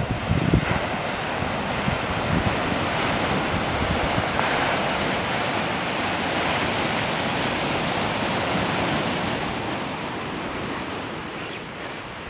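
Sea surf breaking on a beach: a steady rushing wash of waves, easing a little near the end, with some wind buffeting the microphone.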